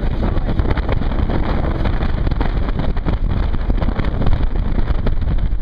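Wind buffeting the microphone on a banana boat towed at speed, with a motorboat's engine droning underneath. The noise is loud and steady, heaviest in the low end, with constant irregular buffeting.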